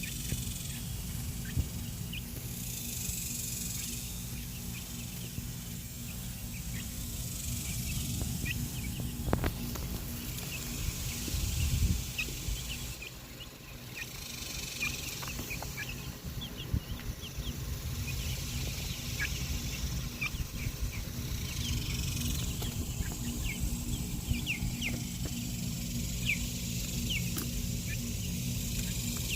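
Young chickens peeping: short, high, falling cheeps scattered irregularly, over a steady low rumble, with a couple of louder knocks in the middle.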